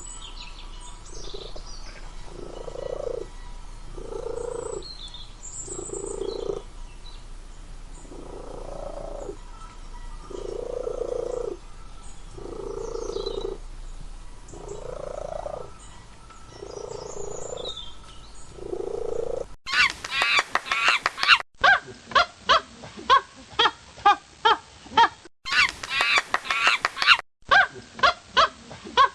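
Animal calls. A slow, regular low croak repeats about every two seconds, with faint bird chirps behind it. About two-thirds of the way in, this gives way to a rapid run of honking calls from waterfowl.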